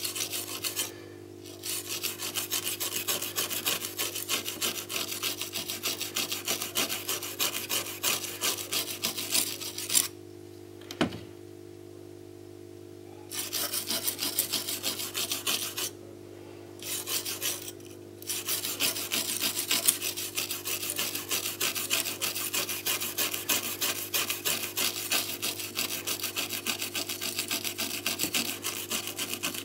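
Stiff bristle brush scrubbed rapidly back and forth across a TV panel's circuit board, cleaning rust left by water damage off the COF flex connections. The scrubbing stops briefly about a second in, for about three seconds near the middle, and for about two seconds a little later, with a faint steady hum underneath.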